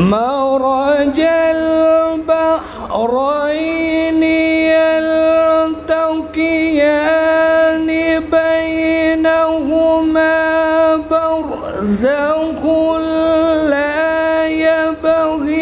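A male qari reciting the Quran in melodic tajweed style, holding long drawn-out notes with small melodic turns. The voice breaks off briefly twice, about three and about twelve seconds in, then rises into the next note.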